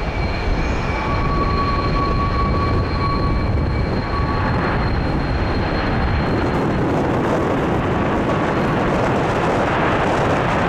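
Boeing 787-9 twin-engine jetliner at takeoff thrust during lift-off and initial climb. A high engine whine in several tones sits over the jet noise for the first four seconds or so, then gives way to a broad rushing roar that swells slightly as the aircraft climbs away.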